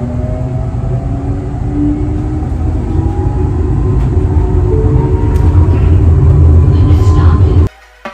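Light rail train heard from inside the passenger car while moving: a low rumble of wheels on rails with an electric motor whine that slowly rises in pitch as the train speeds up, growing louder, then cutting off suddenly near the end.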